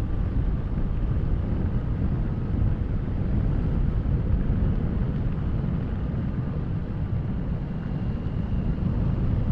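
Steady wind rush over an action camera's microphone on a moving motorcycle, with engine and road noise underneath.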